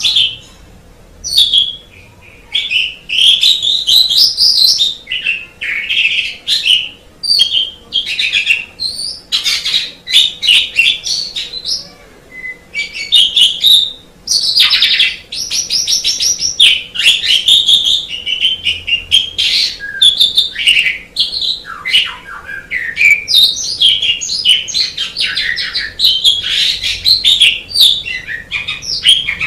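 Asian pied starling (jalak suren) singing: a long, varied run of whistles, chirps and harsh rasping notes, broken by brief pauses.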